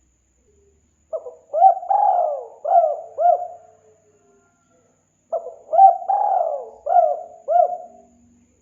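Spotted dove cooing: two calls about four seconds apart. Each is a phrase of about five rising-and-falling coos, with the third coo drawn out.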